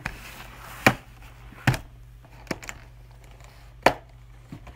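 Clear plastic macaron box being opened and handled: four sharp plastic clicks and taps spread over a few seconds, with a soft crinkle at the start.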